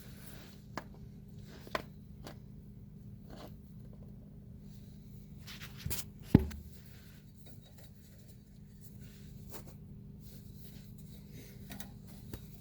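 Shredded V-belt being worked out of a zero-turn mower's drive pulley by hand: scattered light scrapes and clicks, with one sharp knock about six seconds in, over a faint steady hum.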